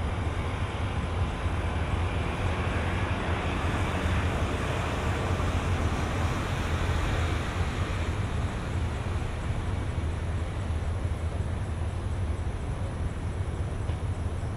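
Street traffic ambience: a steady low rumble with a hiss of passing vehicles, swelling slightly in the first half and easing off.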